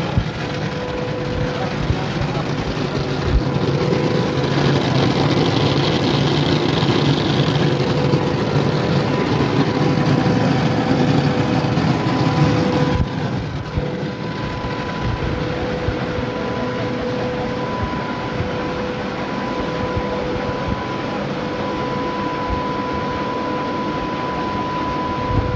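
Old rice-mill machinery running: a loud, steady mechanical din with a constant whine running through it, easing slightly about halfway through.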